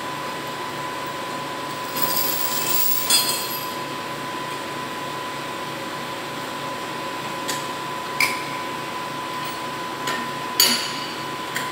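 Steel lifting chains and hooks clinking and clanking against steel test-weight frames as a crane sling is handled: a handful of sharp metallic clinks, the loudest about three seconds in and again near the end. Underneath runs a steady hum with a thin high tone, with a brief rush of hiss about two seconds in.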